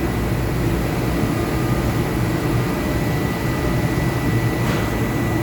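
Steady low hum of running air-conditioning equipment, with a thin high whine held throughout.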